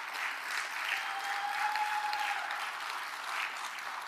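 A large audience applauding, many hands clapping together at once. A thin steady tone sounds for about a second and a half partway through.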